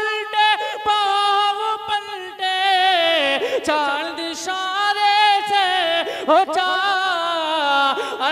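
A man singing a naat in a high voice, drawing out long melismatic notes with a wavering vibrato, with short pauses for breath about three and six seconds in.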